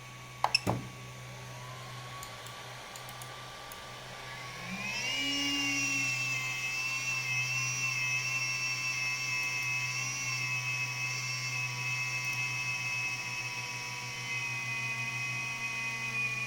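Voxelab 3D printer making a strange noise: a high, steady whine that rises in pitch about five seconds in and holds until it cuts off near the end, over a constant low hum. A couple of sharp clicks come about half a second in.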